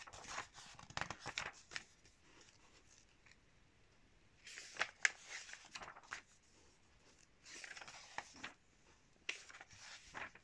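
Pages of a glossy magazine turned by hand: a crackling rustle of paper with each turn, four turns with short quiet gaps between.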